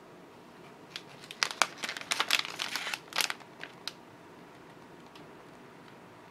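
Plastic snack packaging crinkling as it is handled: a cluster of sharp crinkles from about one to four seconds in, then only faint room noise.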